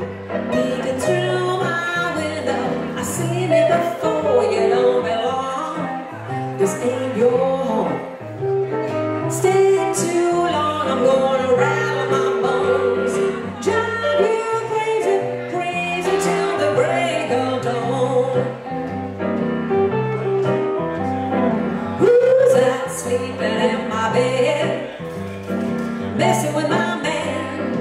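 Live blues played on a hollow-body electric guitar and a stage keyboard, over a bass line that steps note by note.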